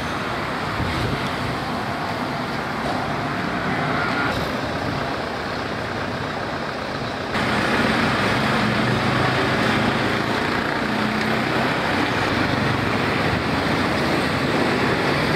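Steady road traffic noise from passing vehicles on a town street, a continuous wash of engine and tyre sound that jumps louder about seven seconds in.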